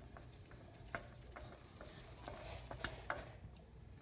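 Faint, scattered small clicks and light rubbing of an oil filter being handled and worked off by hand during an oil change.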